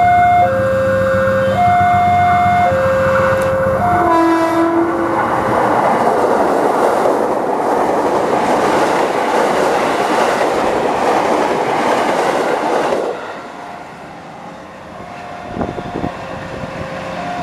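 Level-crossing warning alarm sounding two alternating tones, switching about once a second. About four seconds in a short train horn sounds, and a KRL electric commuter train passes with a loud rumble and wheel clatter for about eight seconds, then cuts off sharply. The alarm's alternating tones return faintly near the end.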